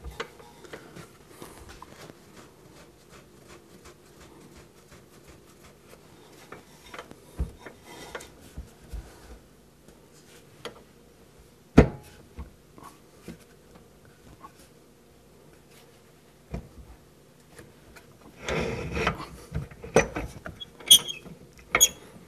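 Hand work on a metal wood lathe being fitted: scattered light clicks and knocks of metal parts, with one sharp knock about halfway through. Near the end comes a short scraping stretch, then a few ringing metal clinks.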